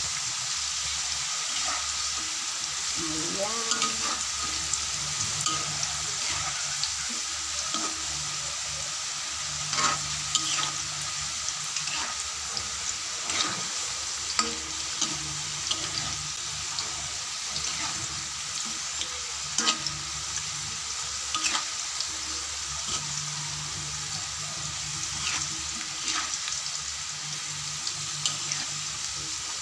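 Sweet potato sticks frying in hot oil with caramelizing sugar in a wok: a steady sizzle, with the metal spatula scraping and clicking against the wok now and then as they are stirred.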